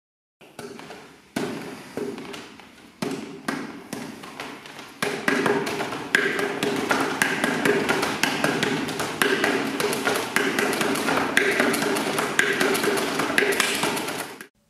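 Hands striking the wooden arms and trunk of a Wing Chun wooden dummy (mook jong): sharp wooden knocks. At first they come about a second apart, then from about five seconds in as a fast flurry of several a second. They cut off abruptly near the end.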